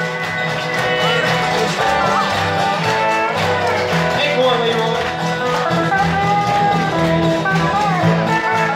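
Live country-rockabilly band playing: guitars over a steady upright bass line.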